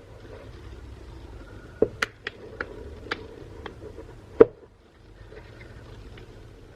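Plastic back cover of a Samsung Galaxy A02 being pried off with a pry tool: a series of sharp clicks as its tight-fitting clips snap loose, the loudest about four and a half seconds in.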